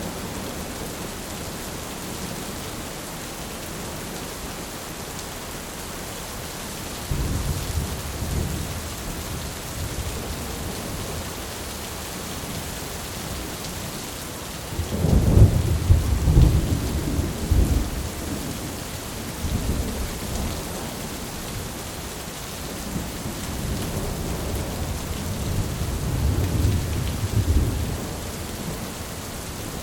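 Steady rain with rolling thunder. A rumble comes about seven seconds in, the loudest one around the middle, and another long rumble near the end.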